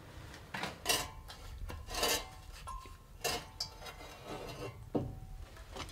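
Glass knocking and clinking as the stopper at the neck of an old glass demijohn of Port is worked loose and lifted, with about six sharp knocks, a few ringing briefly.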